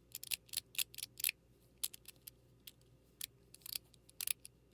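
42cosmo mechanical fidget slider being slid back and forth, giving sharp detent clicks in quick, uneven runs.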